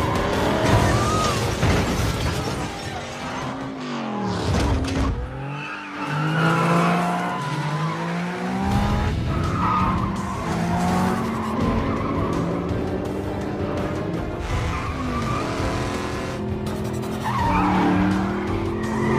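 Film car-chase soundtrack: several car engines revving and passing with tyres squealing, mixed over a background music score.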